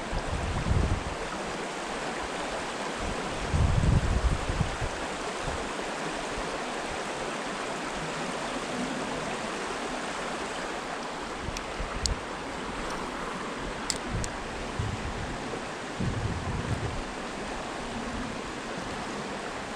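Creek water flowing steadily, with a few brief low rumbles, the loudest about four seconds in, and a couple of faint clicks.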